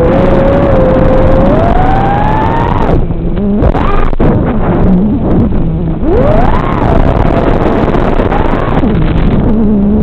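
FPV quadcopter's brushless motors (Xing 2206 2750KV on 4S) whining over heavy hiss, the pitch sweeping up and down as the throttle is punched and chopped, with a sharp dip around the middle.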